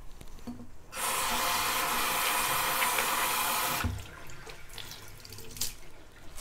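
Bathroom sink tap running hard into the basin for about three seconds, then shut off abruptly, followed by a few small splashes and drips at the sink.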